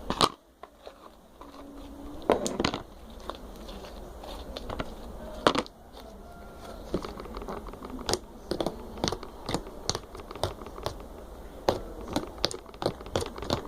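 Slime being squeezed and stretched in the hands, giving irregular clicks and crackles as air pockets in it pop, a few of them louder.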